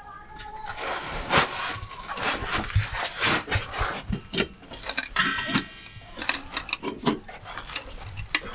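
Irregular metallic clinks and knocks, as of hand tools and parts being handled during a brake repair, with a brief ringing squeak about five seconds in.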